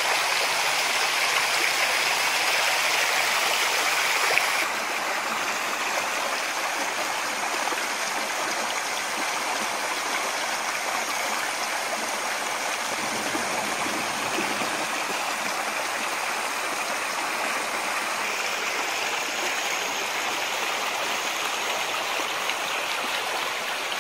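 Small muddy creek swollen by heavy rain, rushing and splashing over rocks in a shallow channel: a steady rush of water. It drops a little in level about four and a half seconds in.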